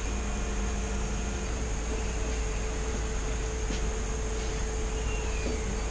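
Steady room noise: an even hum and hiss like a running fan or air conditioner, with a faint steady whine, unchanging throughout.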